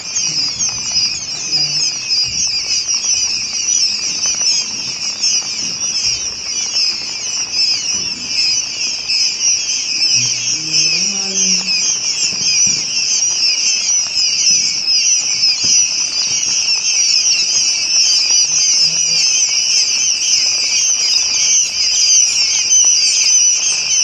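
A large flock of quail chicks peeping continuously, a dense chorus of countless overlapping high-pitched peeps.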